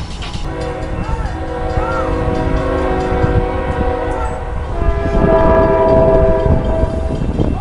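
Locomotive air horn sounding two long blasts, a chord of several notes at once, the second blast louder, over a low rumble from the approaching train.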